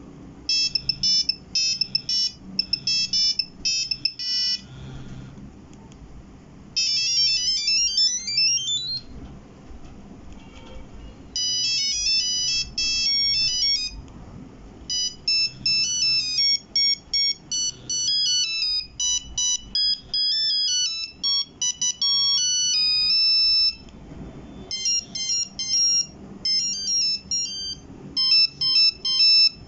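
Nokia 1100 mobile phone playing its monophonic ringtones one after another: about five short beeping melodies of a few seconds each, separated by brief pauses, one of them a quick run of rising notes.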